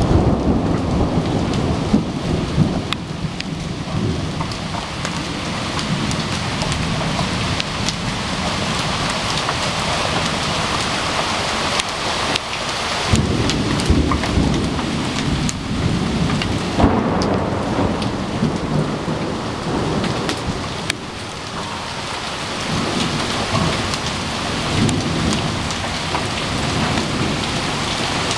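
Large hail, stones about 2¼ inches across, pelting down with heavy rain: a loud steady roar with a heavy low rumble, broken by many sharp cracks of single hailstones striking.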